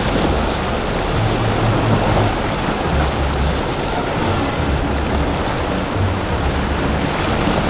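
Steady rush of wind and choppy water as a powerboat runs through rough seas, with its wake churning.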